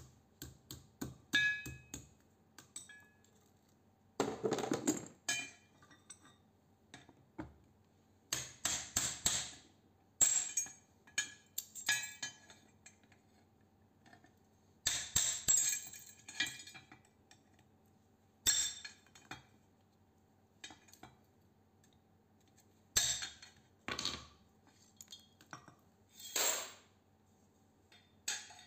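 Hammer blows on a square steel tube standing on a steel bench plate, coming in bursts of several quick strikes every few seconds, some ringing briefly. Metal parts clink and clatter on the bench between the bursts.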